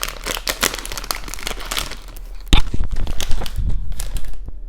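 Plastic bag of Haribo Berries candy crinkling as it is handled and torn open, a dense irregular crackle with one sharp, louder snap about halfway through.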